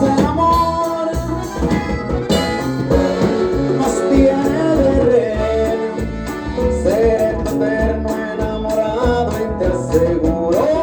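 A live Latin band playing an instrumental passage through a loud PA system, with a steady bass beat under a gliding melodic lead line.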